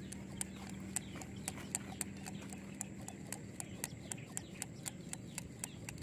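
Steady rhythmic clicking, about four sharp ticks a second, over a faint hum that fades out about halfway through.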